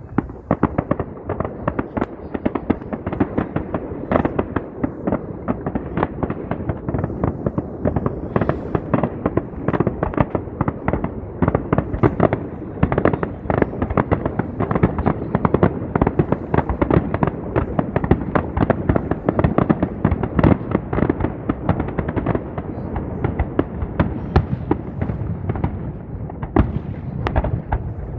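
Fireworks display going off in a dense, continuous barrage: many sharp bangs and crackles a second, overlapping without a break.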